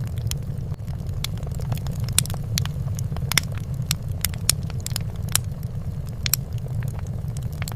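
Fire crackling: irregular sharp pops and snaps, several a second, over a steady low rumble.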